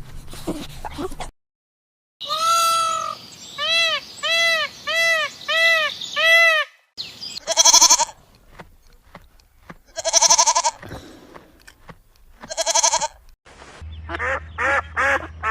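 Animal bleating: a run of short, evenly repeated bleats, then three louder single bleats a couple of seconds apart. Near the end a duck begins quacking rapidly.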